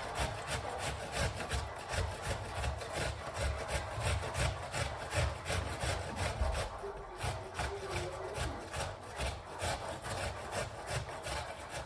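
Brisk, rhythmic back-and-forth rubbing strokes, about three a second, like household scrubbing.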